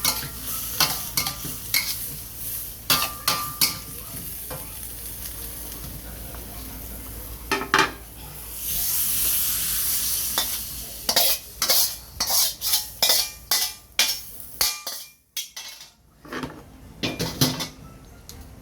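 Food frying in a pan while a metal utensil stirs and scrapes it, clinking against the pan many times. A louder sizzle swells for about two seconds near the middle, and the clatter stops briefly about three-quarters of the way through.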